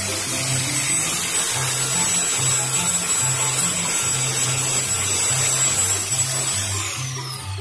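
Electric angle grinder with an abrasive disc running steadily against a wooden bolo handle, with a high whine. Near the end it is switched off and the whine falls as the disc spins down, over background music.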